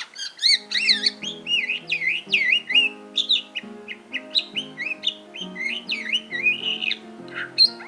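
Budgerigar warbling, a rapid run of chirps and wavering glides, over background music with held notes.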